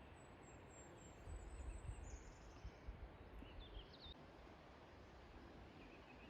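Near silence with faint high bird calls: a thin, high drawn-out note over the first two seconds, then a couple of short chirps about three and a half seconds in, over a faint low rumble.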